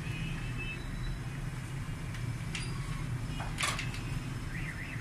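Wide-format copier/scanner running as a large drawing sheet feeds through it: a steady low mechanical hum, with a couple of brief rustling clicks in the second half.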